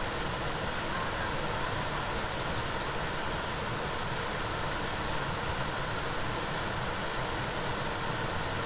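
Steady rushing of creek water over a waterfall, an even unbroken wash of noise.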